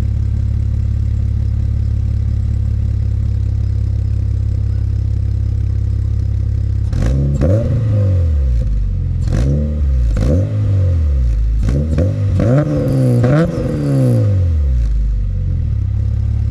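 K24 four-cylinder engine in an Acura RSX idling steadily through an HKS Hi-Power cat-back exhaust with the silencer removed. About seven seconds in, it is blipped through several short free revs, each rising and falling in pitch, then drops back to idle.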